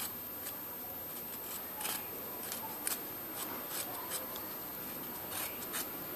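Kitchen knife blade shaving the skin off a raw potato: a string of short scrapes at an uneven pace.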